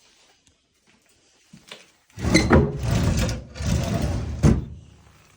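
A stiff piece of old office furniture being dragged open: two loud scraping, rattling pulls, with a short squeak in the first and a sharp knock near the end.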